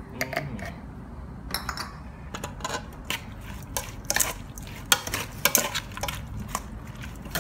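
A utensil clinking and scraping against a pot as grilled pork salad is stirred and tossed, with many sharp, irregular knocks.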